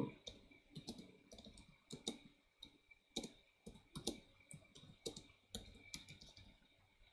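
Faint computer keyboard typing: irregular runs of key clicks as a terminal command is entered.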